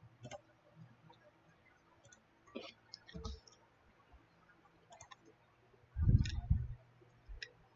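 A few scattered computer mouse clicks, made while a capacitor is selected and deleted from a circuit schematic, with a short, louder low thump about six seconds in.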